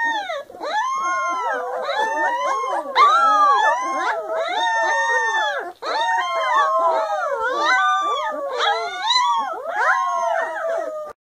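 A litter of young Golden Retriever puppies howling together: several high voices rise and fall in long overlapping glides, a continuous chorus that cuts off suddenly near the end.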